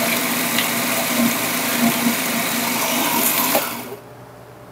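Commercial food processor running, its blade grinding dry, crumbly sacha-sauce ingredients toward a sandy texture. A little over three and a half seconds in, it is switched off and the motor winds down.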